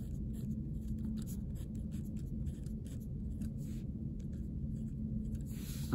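A pen writing on paper in many short strokes, the quick scratch of a handwritten equation.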